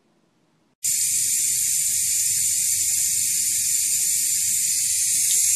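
Bathtub tap running: a steady hiss of water pouring from the spout, starting abruptly about a second in.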